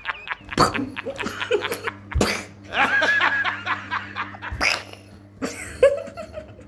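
A man laughing in repeated bursts.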